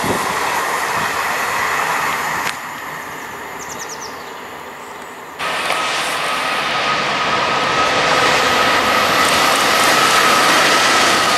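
Noise of a just-passed train that cuts off abruptly to quieter ambience about two and a half seconds in. A little past five seconds it jumps back up: a Class 66 diesel locomotive approaching, its engine noise and a steady whine growing gradually louder.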